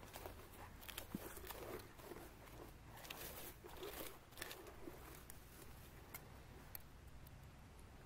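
Faint, irregular crunching and rustling clicks over a low steady rumble; the clicks thin out near the end.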